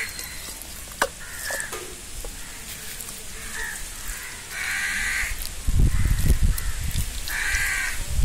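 Crows cawing, a harsh call every couple of seconds, two of them louder in the second half. A low rumble from about six seconds in is the loudest sound, and there is a single sharp click about a second in.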